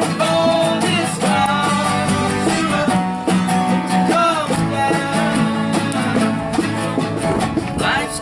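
A rock band playing live: guitars and bass over a steady beat of drum hits, with a melody line of bending, sliding notes.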